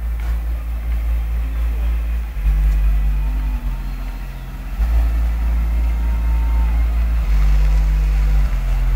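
Car audio subwoofers playing deep, stepping bass notes, heard from outside the car as it rolls slowly closer; the bass gets louder about halfway through.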